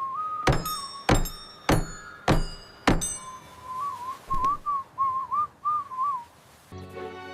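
Someone whistling a wavering little tune, with five sharp ringing knocks about every 0.6 s over the first three seconds.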